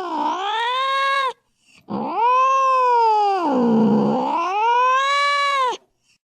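Cat caterwauling, the drawn-out yowls of a cat squaring up to fight. One wavering howl breaks off about a second in. After a short pause a second long howl sinks low, rises again and cuts off near the end.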